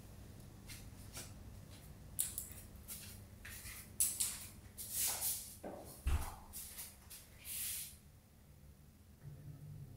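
Soft shuffling footsteps and scuffs on a concrete floor, a run of short swishes, with a dull thud about six seconds in, over a low steady room hum.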